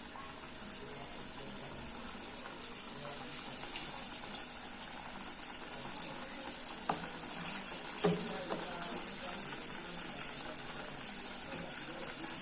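Flour-coated chicken wings frying in hot vegetable oil: a steady sizzle with scattered sharper crackles.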